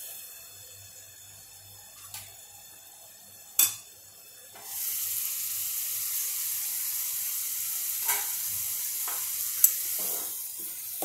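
Spice masala frying in oil in a non-stick pan: a faint sizzle under a stainless-steel lid, a sharp clink of the lid about three and a half seconds in, then a loud steady sizzle once the lid is off, with a few light taps of a steel spoon stirring near the end. The masala is cooking down until the oil separates at the sides, the sign that it is done.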